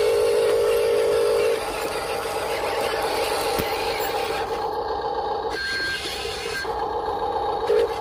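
Huina 1573 radio-controlled dump truck running: a steady whine, louder for the first second and a half and then softer, with a short break near the six-second mark.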